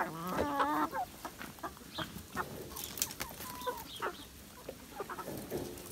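Domestic chickens clucking, with one longer, louder call in the first second followed by scattered short clucks.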